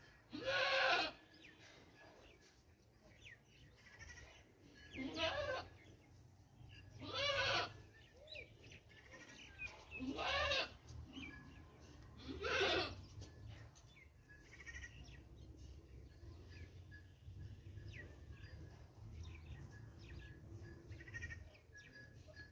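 Five loud, drawn-out animal calls, about two to three seconds apart in the first half, each falling in pitch at its end.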